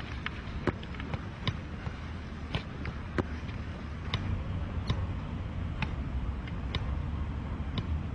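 Football being juggled: a dull knock each time foot or body touches the ball, about one a second, over a steady low rumble.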